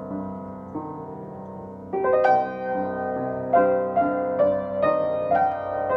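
Upright piano played slowly: soft held chords, then about two seconds in a louder passage with higher melody notes struck over the chords.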